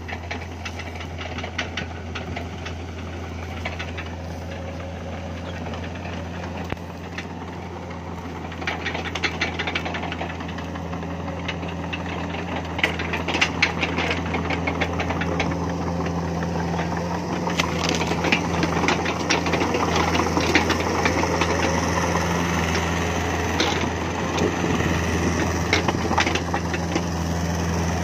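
A mini excavator's diesel engine runs steadily while the machine travels on its tracks over cleared ground. Track clatter and the cracking of brush and branches under it grow busier after several seconds, and the whole sound gets louder as it comes closer.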